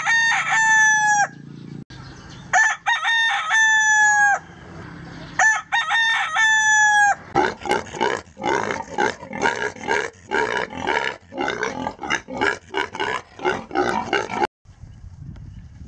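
A rooster crows three times, each crow about a second and a half long. Then a pig gives short, squealing grunts over and over, two or three a second, until they cut off suddenly near the end.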